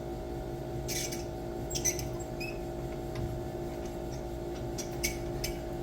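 A quarter-inch high-speed steel tool bit being pushed through a bore on a lathe to shave out a square drive hole, a few chips at a time: scattered small scraping clicks and squeaks over a steady hum.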